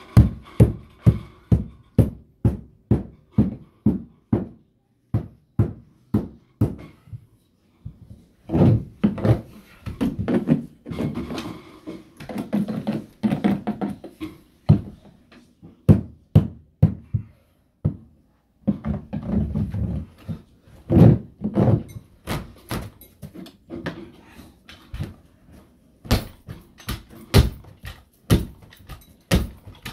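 Hammer blows on carpeted stair steps, hammering new stair carpet into place: a run of sharp strikes a few times a second, broken by short pauses, with quicker runs of blows in the middle and near the end.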